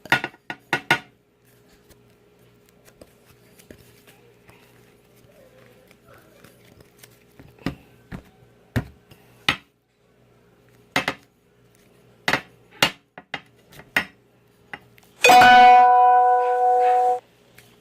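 Scattered sharp clicks and knocks against a bowl as slime is worked off it. About fifteen seconds in, a loud steady pitched tone lasts about two seconds and cuts off.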